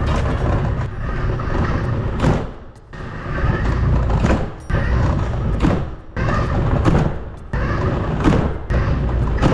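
Radio-controlled toy truck repeatedly driving into a closed wooden door: several thuds against the door, with the truck's electric motor running in spurts between them.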